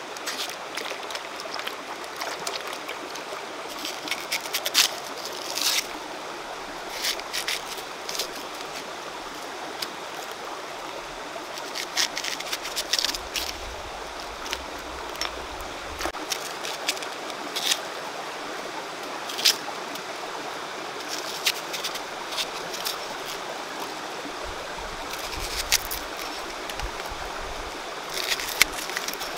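Steady flowing stream water, with irregular sharp knife cuts as banana-stem pith is sliced and chopped by hand, sometimes several in quick succession.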